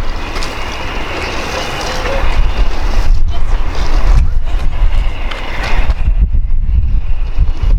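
Wind buffeting the microphone: a heavy, gusty rumble, with a steadier hiss underneath for the first three seconds.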